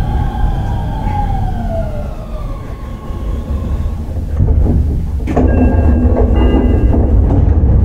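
Running sound inside a Shin-Keisei 8900 series electric train with its renewed Mitsubishi IGBT VVVF inverter: the motor whine slides down in pitch over the first couple of seconds as the train slows, over a steady rumble of wheels on rail. About five seconds in, the rumble gets louder, with several steady tones held over it.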